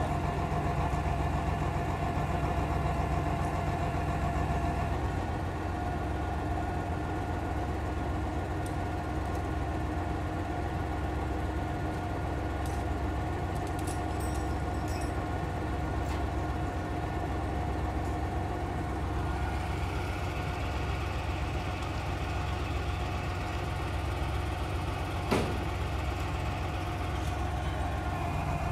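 Truck diesel engine running steadily to drive the hydraulic knuckle-boom crane as it lifts a combine harvester header. The engine note drops about five seconds in and changes again near twenty seconds, and a single sharp knock sounds about 25 seconds in.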